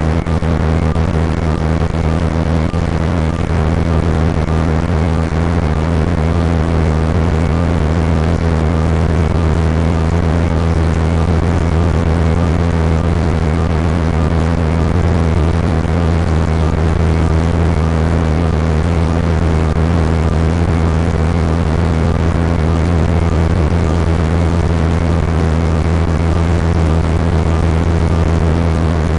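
A vehicle's steady low drone of engine and road noise, with a constant hiss over it, unchanging throughout.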